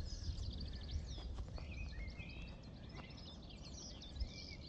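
Small songbirds chirping and trilling, with many short high calls and a quick trill near the start, over a low steady rumble.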